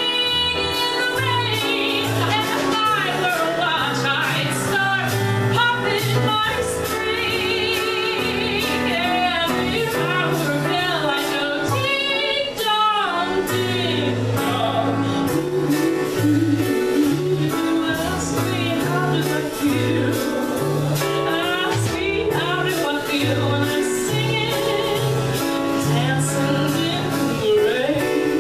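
Woman singing a show tune live into a microphone, backed by a small band with keyboard, bass and drums; she holds several notes with a wide vibrato.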